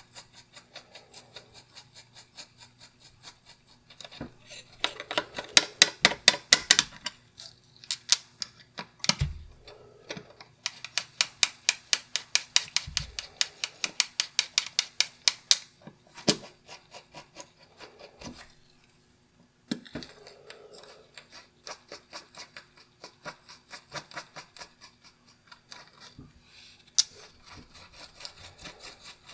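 A small bristle brush wet with cleaning solvent scrubbing pocket-watch movement parts held in tweezers: fast scratchy strokes, about five a second, loudest in two runs in the first half and lighter later, with two dull bumps.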